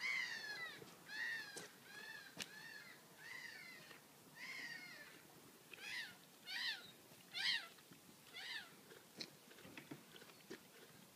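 An animal calling again and again: about nine short calls, each falling in pitch, shorter and closer together after about six seconds in, then a few soft clicks near the end.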